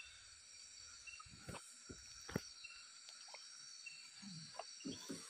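Steady high chirring of night insects, with a few faint knocks and rustles as a gill net is hauled in by hand over the bow of a wooden boat.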